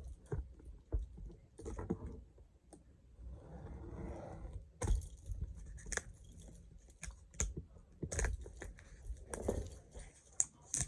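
Hands handling a cardboard product box and its packaging: scattered clicks, taps and light rustling, with a short stretch of scraping or sliding about four seconds in.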